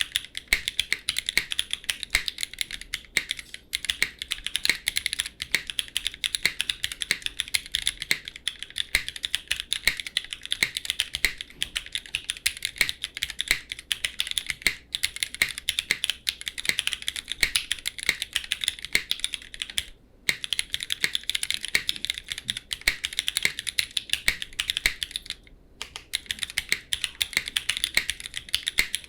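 Fast, continuous typing on an F1-8x V2 custom mechanical keyboard with Cherry MX2A Black linear switches, DCX keycaps and no case foam: a dense run of keystroke clacks. The typing stops briefly twice, about 20 and 26 seconds in.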